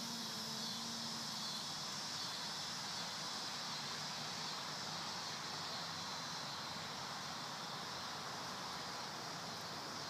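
Electric motor and propeller whine of an E-Flite P-47 Thunderbolt RC plane, fading out over about the first second as the plane climbs away. After that there is only a steady outdoor hiss, with the plane at most faintly audible.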